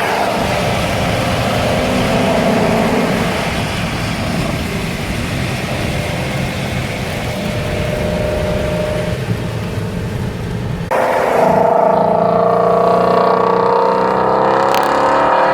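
Shelby GT350R's 5.2-litre flat-plane-crank V8 running under a steady hiss of road noise. About eleven seconds in, the sound cuts abruptly to the engine pulling hard, its pitch climbing steadily as it revs up.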